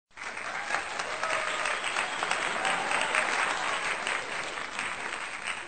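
Canned applause sound effect: many hands clapping, starting abruptly and keeping on at an even level.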